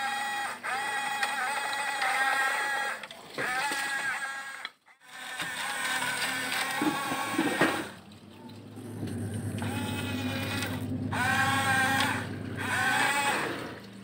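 Huina 1569 radio-controlled bulldozer's electric drive motors and gearboxes whining in several separate bursts that glide up and down in pitch as the toy drives and pushes the river stones.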